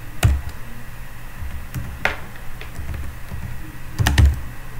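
Computer keyboard keys struck: a single keystroke about a quarter second in, another about two seconds in, and a quick cluster of strokes near the end, over a low steady hum.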